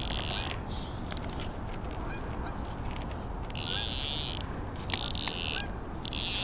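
Redington Crosswater fly reel ratcheting as line is pulled off it by hand: a short burst at the start, then three rasping buzzes in quick succession over the last three seconds, as line is stripped out for a cast.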